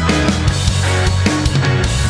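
Background music: loud, hard-driving rock with drum kit, guitar and steady bass.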